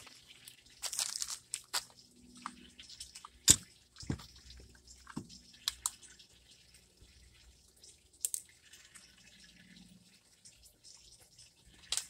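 Faint water running as a Samsung top-load washer fills, under plastic crinkling and scattered clicks and knocks, with one sharp knock a few seconds in as the loudest sound.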